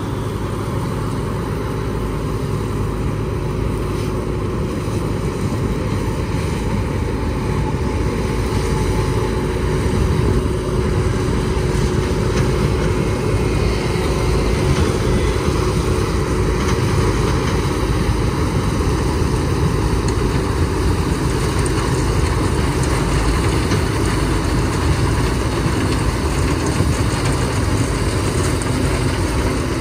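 CLAAS Mega 204 combine harvester running steadily while cutting and threshing dry flint corn, its diesel engine and corn header giving a loud, even drone. A faint steady whine sits over it for a stretch in the first half.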